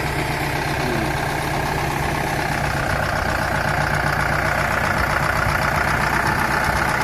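Compact farm tractor engine idling steadily, the tractor fitted with a front loader and backhoe.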